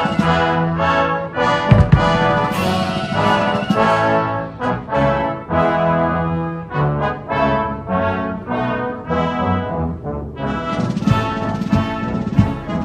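Brass band playing a national anthem, sustained brass chords moving from note to note, with drum strokes about two seconds in and again near the end.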